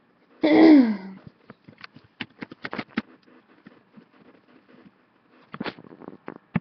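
A brief falling voiced sound from a person, like an "ohh", about half a second in. It is followed by a quick run of sharp computer mouse and keyboard clicks, with a few more clicks near the end.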